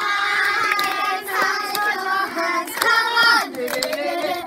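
A group of children singing a song together in unison, with scattered hand claps.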